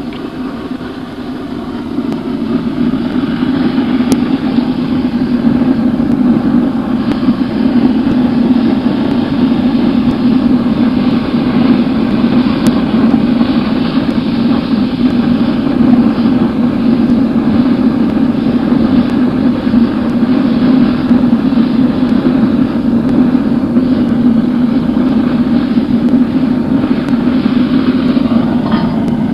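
Steady roar of a waste-gasification stove's fire as a plastic tube burns in its firebox, building over the first couple of seconds and then holding level.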